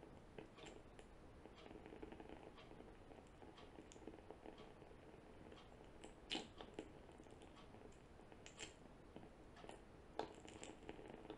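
Near silence: faint room tone with scattered soft, irregular clicks and taps, the loudest a little after six seconds in and again about ten seconds in.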